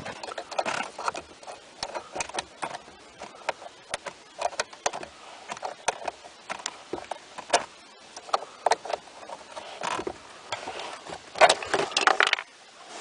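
Irregular clicks, knocks and small rattles of hands and a tool working at a VW Golf Mk4's plastic inner door panel and its retaining clips, busiest near the end.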